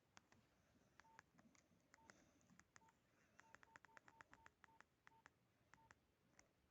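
Nokia 1616-2b keypad being pressed over and over, quiet clicks, most with a short key beep, coming in quick runs of several presses a second, as the ringtone list is scrolled to the next tone.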